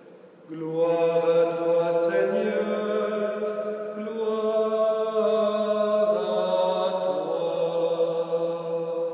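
A single male voice chanting a slow liturgical melody in long held notes, starting about half a second in.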